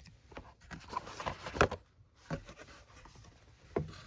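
Paper and cardboard packaging being handled by hand: irregular rustling and scraping with a few light knocks, the loudest a little past a second and a half in.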